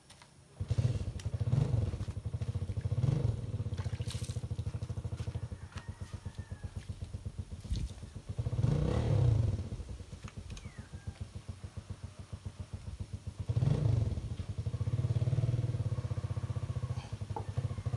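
A small engine starts abruptly about half a second in and runs with a rapid firing pulse, revving up and settling back several times.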